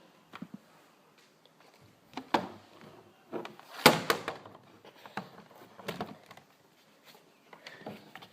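Irregular plastic clicks and knocks from a Nerf Demolition blaster being handled and its parts moved, the loudest knock about four seconds in.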